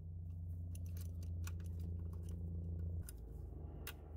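Ratchet clicking in irregular short strokes as it backs out the purge valve's mounting screws through a screwdriver bit. A steady low hum runs underneath and drops in level about three seconds in.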